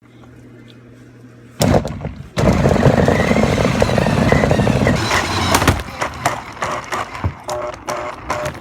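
Electric RC car run fast along a hallway floor: a loud knock, then a few seconds of hard running with a faint whine rising and falling, followed by a string of rapid clicks and knocks.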